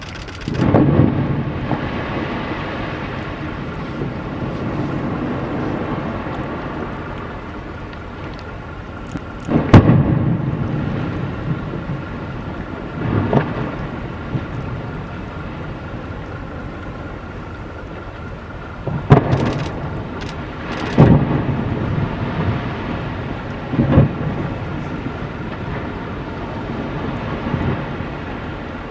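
Ice breaking off an iceberg's arch and crashing into the sea: a series of heavy rumbling crashes and splashes, the loudest about ten seconds in and a cluster around twenty seconds in, over a steady rush of water and wind.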